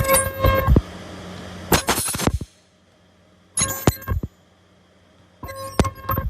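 Handheld ultrasonic plastic welder firing in four short bursts about two seconds apart, each under a second long: a clinking, ringing buzz as the horn presses and welds the plastic card. A low steady machine hum underneath stops about two and a half seconds in.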